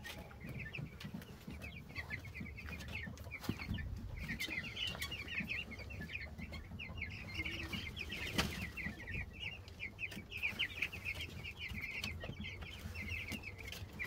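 A flock of young meat chickens and ducks peeping, many short high peeps overlapping without a break. There is a single knock a little past halfway.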